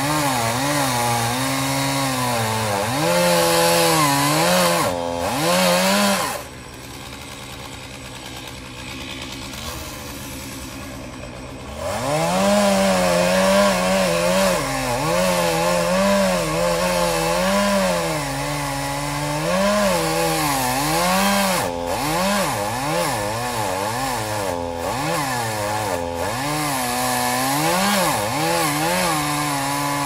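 Gas chainsaw cutting pecan wood, its engine pitch rising and sagging as the chain bites. About six seconds in it drops to a lower, steady idle for several seconds, then revs back up and cuts again, its pitch wavering.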